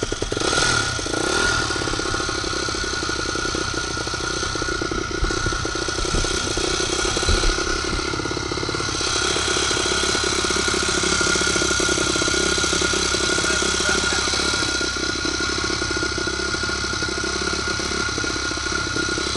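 Dirt bike engine running steadily at a constant low speed with no revving, carrying a steady high whine over the exhaust note.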